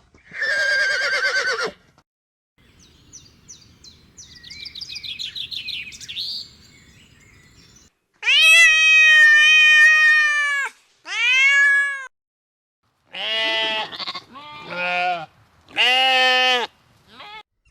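A series of goat bleats: one long, steady bleat, a shorter one, then several short quavering bleats near the end. Faint chirping fills the quieter stretch before them.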